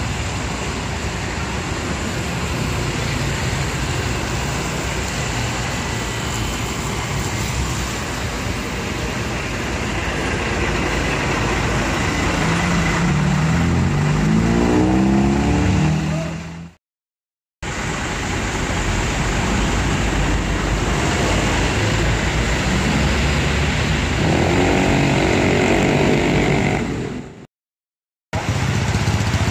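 Traffic hiss of tyres on a wet road, with a coach bus's engine accelerating close by about twelve seconds in, its pitch rising, before the sound cuts off abruptly. After the cut the wet-road hiss returns and another bus engine rises near the end, cut off abruptly again.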